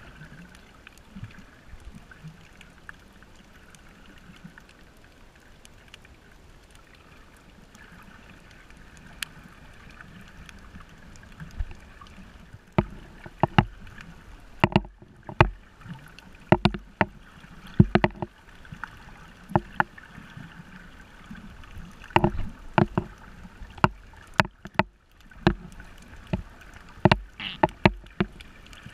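Underwater audio from a camera moving over a coral reef: a steady muffled water hiss. From about halfway through, irregular bunches of loud knocks and sloshing thuds break in as water moves around the camera.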